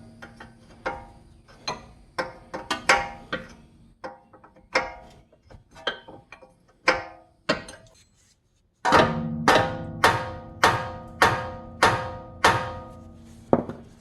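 A series of sharp hammer blows on steel, each ringing on at the same pitch: irregular at first, then about ten steady, harder blows roughly half a second apart after a brief break.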